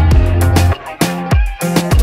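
Background music with a steady beat, a deep bass line and a kick drum.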